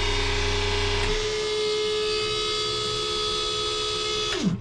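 Electric-motor-driven Echo Tec watermaker high-pressure pump running with a steady whine. About a second in, a lower hum cuts out. Near the end the pump winds down in pitch and stops.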